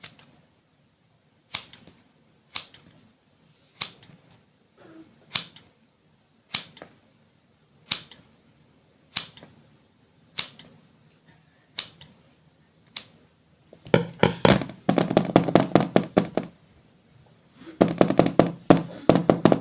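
Slime being poked and pressed, giving sharp pops about once a second, then two bursts of rapid crackling pops as it is squeezed near the end.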